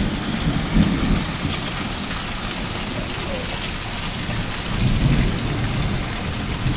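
Heavy rain falling in a steady downpour, with water gushing from a roof drain pipe. A low rumble runs underneath and swells about five seconds in.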